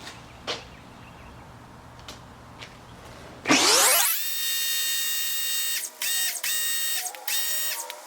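Ryobi RY141612 electric pressure washer's motor spinning up with a fast rising whine as the gun's trigger is pulled about three and a half seconds in. It then runs steadily with a spray hiss while foaming. The motor sags briefly a few times as the trigger is let off and squeezed again, and it starts winding down at the very end.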